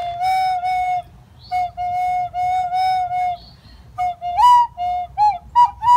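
A small fipple flute played as a slow melody of held notes with a slight waver, broken by short pauses for breath, moving to quicker, higher notes near the end.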